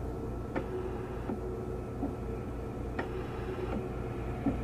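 Steady low mechanical hum with a few faint ticks scattered through it.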